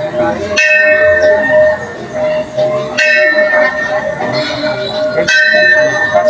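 Church bell tolling: three strikes about two and a half seconds apart, each ringing on and fading, over a steady ringing tone and the murmur of voices.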